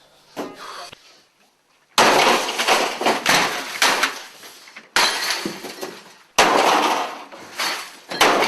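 Sledgehammer smashing an office printer: four heavy crashes, each with sudden breaking and clattering that trails off, after a lighter knock at the start.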